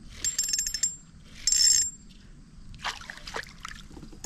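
Ultralight spinning reel's drag ticking rapidly in two short bursts as a hooked fish pulls line, followed about three seconds in by a few splashes of the small largemouth bass thrashing at the surface.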